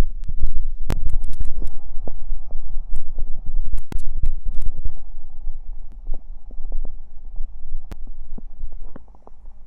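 Stomach and intestines gurgling after drinking cider: a low rumble with many quick pops and crackles, busiest in the first half and tapering off toward the end.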